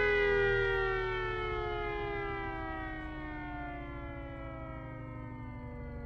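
Small 240-volt electric motor siren winding down: its wail falls steadily in pitch and fades as the rotor slows after the power is switched off.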